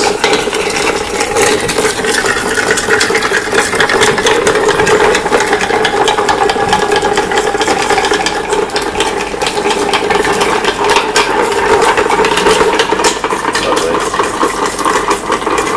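Bar spoon stirring a whisky cocktail over ice in a metal mixing tin: a steady, rapid rattle and clink of ice cubes against the metal.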